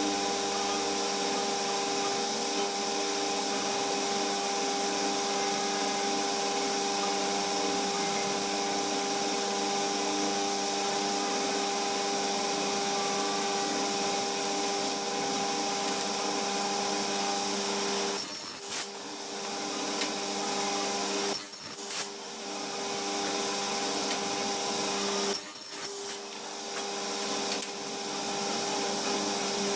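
A power tool's motor running steadily with a constant hum and hiss. In the last third it drops away briefly three times, each break marked by sharp clicks.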